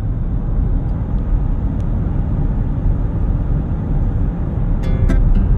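A steady low rumble with no clear pitch. Plucked music, harp-like, comes in about five seconds in.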